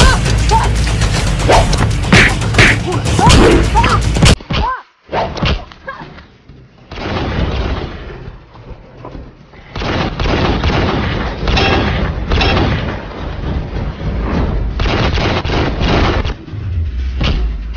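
Action-film soundtrack: music with heavy hit sound effects. About four seconds in it cuts abruptly to a duller-sounding track carrying a series of irregular hits.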